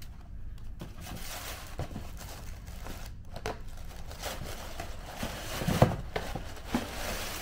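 Packaging crinkling and rustling as it is handled, with scattered light clicks and one louder knock about six seconds in.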